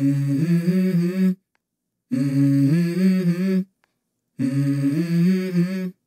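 Wordless hummed vocal harmony in three short phrases with brief silent gaps between them, the notes held and stepping in pitch like an a cappella music intro.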